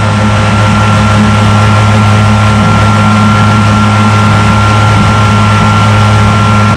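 15 hp Mercury EFI outboard motor running loud and steady at a constant speed, with the rush of wind and water under it. The sound cuts off sharply at the end.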